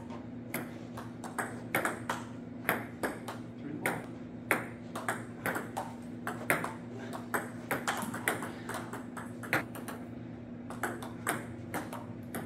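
Table tennis rally: the ball clicking off the paddles and bouncing on the table, a few sharp clicks a second, over a steady low hum.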